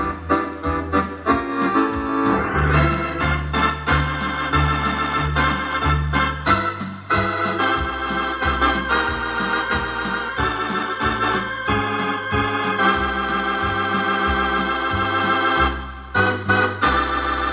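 Wersi electronic home organ playing a tune with sustained chords and a bass line over a steady drum beat. The music breaks off for a moment near the end and then picks up again.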